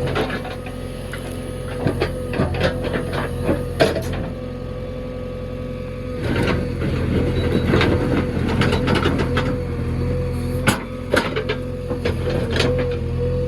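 JCB backhoe loader's diesel engine running under load with a steady hum and a whine, with scattered knocks and clatters as the machine works; it gets louder about six seconds in.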